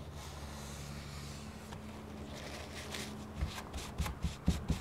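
A wooden cabinet door being handled on a padded table while excess glue is wiped off its edge with a tissue: faint rubbing, then several knocks from about three and a half seconds in. A low steady hum sits underneath.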